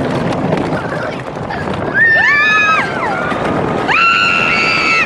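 Riders screaming on the Jack Rabbit wooden roller coaster: a short scream that rises and falls about two seconds in, then a longer held scream from about four seconds, over the steady rumble of the coaster train running on the track.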